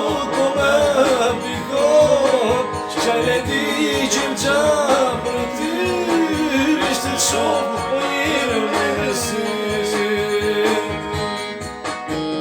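A song: a singer over instrumental accompaniment with a steady beat, the voice wavering in pitch. About two-thirds of the way through the singer holds one long note.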